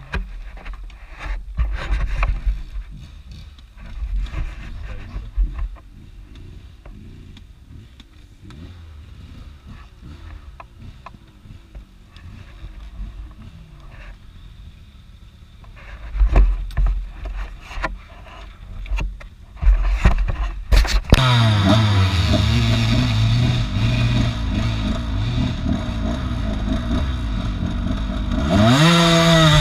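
Low rumbling wind buffets and knocks on the microphone, then about two-thirds of the way in a Beta 200RR two-stroke enduro motorcycle engine starts and runs steadily. Near the end it is revved, its pitch rising.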